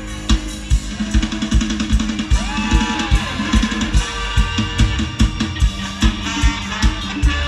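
Live mor lam band music driven by a drum kit: a steady kick-drum beat about two strokes a second with snare, under the full band and a gliding melody line.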